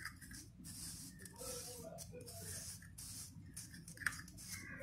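Faint handling sounds of a plastic spice-grinder jar and its blade lid being picked up and moved, with a small click about four seconds in, over a faint background hiss. The grinder motor is not running.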